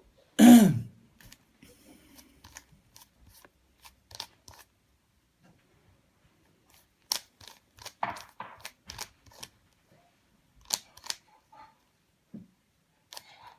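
Rubik's cube being turned by hand: sharp plastic clicks in irregular clusters as the layers are twisted. About half a second in there is one short, loud vocal sound that falls in pitch.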